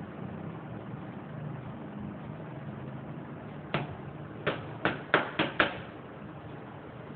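Six sharp knocks in quick succession over about two seconds, each with a short ring, from hand work on the motorcycle's exhaust parts, over a steady low hum.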